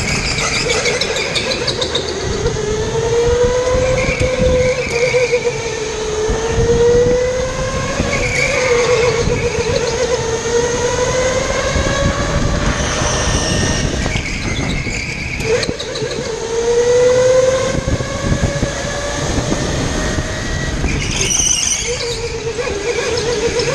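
Go-kart motor running through a lap, its pitch rising and falling with speed through the corners, over rumbling chassis and tyre noise.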